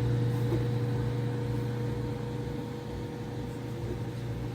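Steady low hum of a running appliance, with a faint higher tone above it and no breaks.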